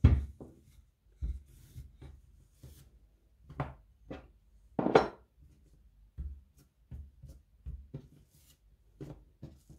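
Wooden rolling pin working dough on a plastic board: scattered soft knocks and rubbing as the pin rolls, is lifted and is put down, the loudest knock about five seconds in.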